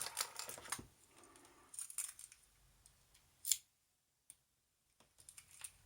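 Small metal clicks and clinks of tools and padlock parts being handled as a Squire SAL40 padlock is taken apart. A burst of quick clicks comes at the start, a few more about two seconds in and one sharp click about three and a half seconds in. After a short hush, more light clicking comes near the end.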